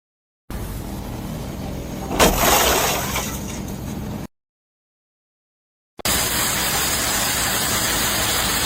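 A sudden loud crash over steady background noise about two seconds in, fading out over the next second. After a silent gap, a steady rushing hiss takes over.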